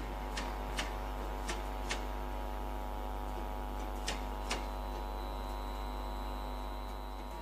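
Class 90 electric locomotive standing at a platform, giving a steady electrical hum with many tones stacked together. Three pairs of sharp clicks sound over the first five seconds, and a thin high tone joins about four seconds in.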